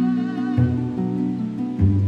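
Background instrumental music in an East Asian style, with held low notes that change about half a second in and again near the end.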